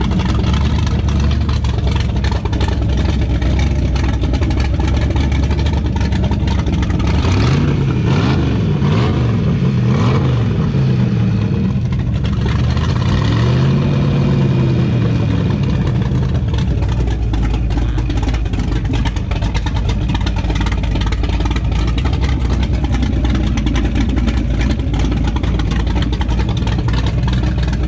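A 565-cubic-inch big-block V8 with aluminum heads, headers and a big cam, in a boat's sterndrive installation, running loud on the trailer. The throttle is blipped several times about a third of the way in and again around halfway, with the revs rising and falling each time.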